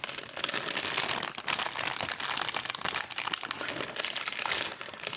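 Plastic packaging crinkling and rustling without a break as it is handled, a dense crackle of many small clicks.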